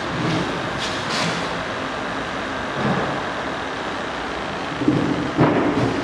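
Steady mechanical running noise, with a few dull knocks, the loudest about five seconds in.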